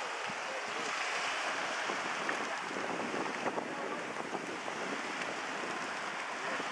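Steady rush of wind and sea water around a schooner under way, with wind buffeting the microphone.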